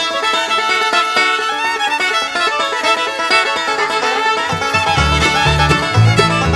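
Instrumental background music in a bluegrass style, with fiddle over plucked strings; a low bass line comes in about five seconds in.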